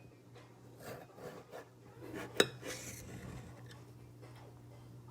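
Knife cutting through a raw potato on a plate, with a few light clicks and scrapes of the blade against the plate and one sharp clink about halfway through.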